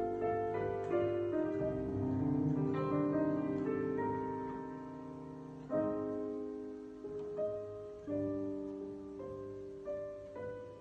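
Background piano music: a slow melody of single notes and chords, each struck and left to ring down, with fresh chords about six and eight seconds in.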